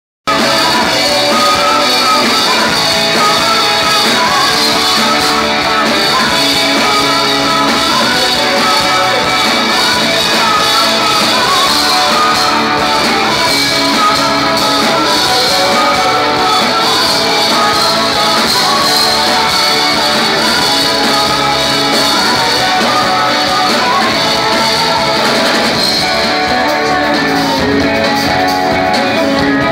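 Rock band playing live: guitar-led music with a sung melody over it, continuous and even in loudness.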